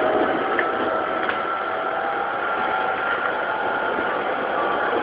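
Tokyu 2000 series electric train running, heard from inside the car: a steady rumble of wheels on rail with the even tones of its Hitachi GTO-thyristor VVVF traction inverter and motors.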